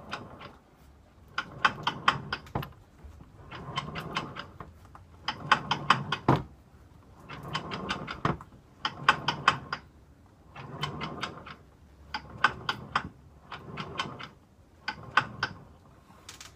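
Abnormal mechanical noise from a Mini car: about nine repeated bursts of rapid clicking and rattling, each about a second long, coming every one and a half to two seconds.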